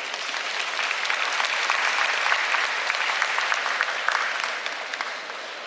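Arena audience applauding: a dense patter of hand claps that swells, holds, then fades near the end.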